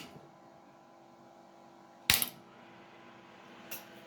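Sharp clicks of the tube equipment being switched on, one at the start and one about two seconds in, with a fainter one near the end, over a faint steady electrical hum as it powers up after a capacitor replacement.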